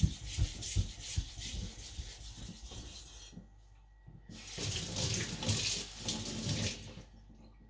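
Niolox steel nakiri blade stroked back and forth on a wet whetstone, a rhythmic wet scraping. It pauses briefly partway through, then a second run of strokes follows, polishing the bevel behind the edge.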